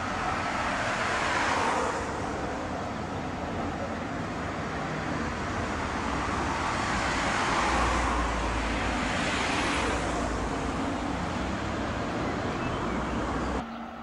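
Street traffic noise as a Tram 2000 articulated tram and cars pass, swelling twice, the louder swell about eight seconds in. The sound drops abruptly to a quieter street background near the end.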